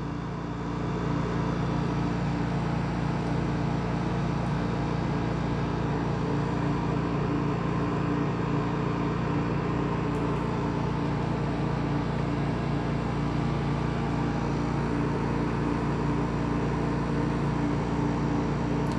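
Steady low mechanical hum, growing slightly louder about a second in and then holding even.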